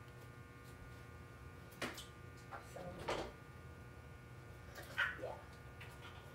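A steady electrical hum and buzz of room tone, with a few brief faint knocks and rustles about two, three and five seconds in.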